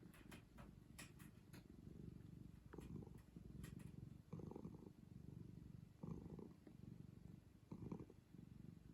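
Domestic cat purring softly, the purr swelling louder about every second and a half with its breaths.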